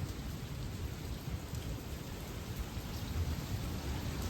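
Heavy rain pouring steadily, with a low rumble underneath.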